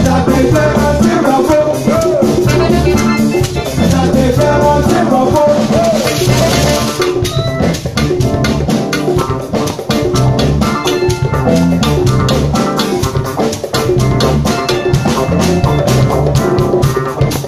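Live Afrobeat band playing at full level, a drum kit keeping a steady beat under bass and melodic lines; a cymbal wash sounds about six seconds in.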